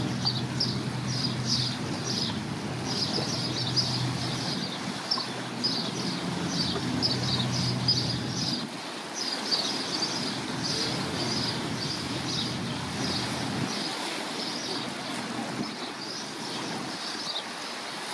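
Low steady drone of a large ship's engine, which stops about halfway through, over a steady noise of wind and water. A small bird chirps in quick repeated high notes throughout.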